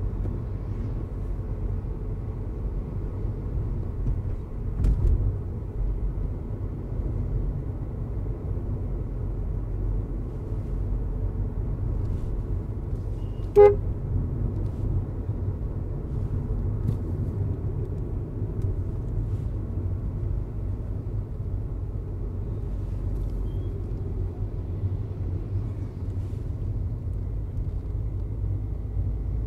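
Cabin sound of a Volkswagen Vento TSI sedan driving in town traffic: a steady low engine and road rumble, with a low thud about five seconds in. A single short car horn toot sounds about halfway through.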